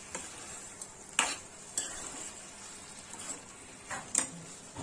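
A metal spoon stirs potatoes and chopped sorrel leaves (chukka bhaji) in a metal kadai. Several sharp scrapes and clinks against the pan sound over the low sizzle of the cooking curry.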